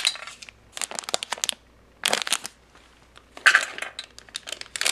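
Foil ration pouch crinkling and crackling in several short bursts with brief pauses, as a packet of dried cranberries is opened and emptied into a steel tray.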